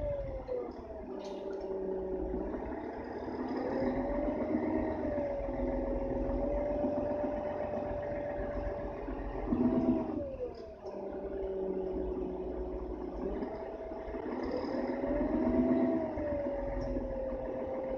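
Inside a 2001 Mercedes-Benz O530 Citaro bus under way: the OM457 hLA diesel and ZF EcoMat automatic gearbox run with a steady rumble and a whine that slowly rises in pitch, then drops sharply near the start and again about ten seconds in, as the gearbox changes gear.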